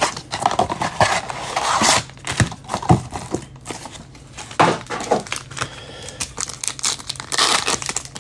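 Trading card packaging being opened by hand: wrappers and cardboard crinkling and tearing in irregular rustles and sharp crackles.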